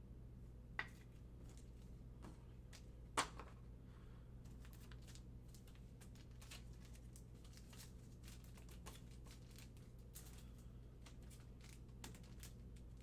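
Trading cards being handled and sorted: soft rustles and light card clicks, with two sharper clicks about one and three seconds in, over a steady low hum.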